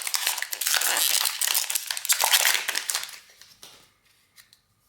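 Foil wrapper of a Pokémon card booster pack crinkling as it is torn open and handled. The crinkling lasts about three seconds, followed by a few faint taps.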